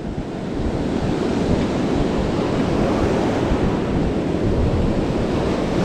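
Ocean surf breaking and washing up the shore at close range, a steady rush of water with wind buffeting the microphone.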